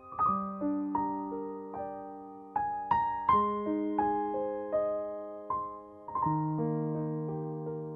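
Background piano music: a slow, gentle melody of single notes and chords, each struck and left to ring out.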